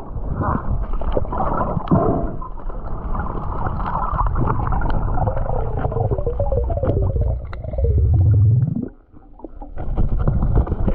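Muffled water sounds of a snorkeller diving, heard through a camera's waterproof housing: gurgling and sloshing, with a low rumble that swells near the end and cuts off suddenly.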